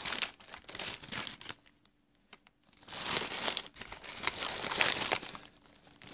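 Plastic snack-pack wrappers crinkling as they are handled, in two bouts: a short one at the start and a longer one from about three seconds in.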